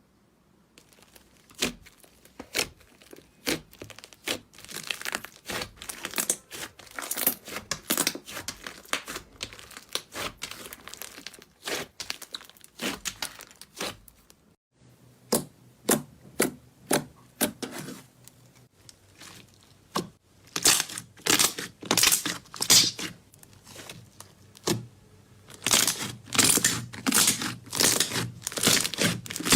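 Slime being squeezed and poked by hand, giving dense runs of sharp crackles and pops with brief pauses between them. A short break about halfway through leads into a second stretch of pops over a low steady hum.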